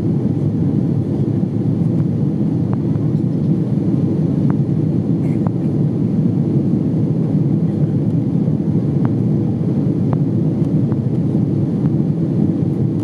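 Jet airliner cabin noise after take-off: a steady, even low drone of engines and rushing air heard inside the cabin, with a few faint clicks.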